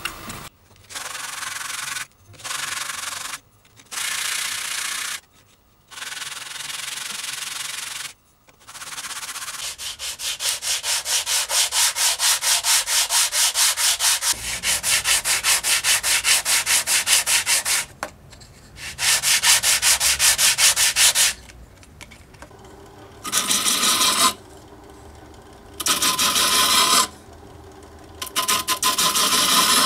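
Wood being sanded. First come short sanding bursts, then a long run of quick back-and-forth strokes of a wooden strip over sandpaper sheets. After that a small disc sander runs in several short bursts with a steady hum as a small block of wood is pressed against its spinning abrasive disc.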